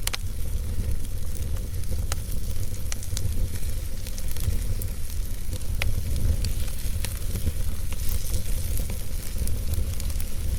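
Wood fire burning in a fireplace: a steady low rumble and hiss with irregular sharp crackles and pops from the logs.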